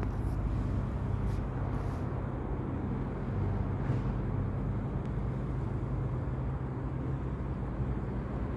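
Steady low rumble of a vehicle engine running, with a few faint short high sounds on top.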